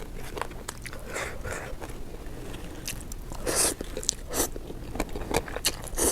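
Close-miked chewing and biting of crunchy food, with irregular crackly crunches, the loudest a little past halfway through.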